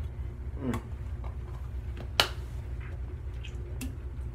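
Handling noise from a can of dipping-tobacco pouches, with one sharp click about two seconds in, over a low steady hum.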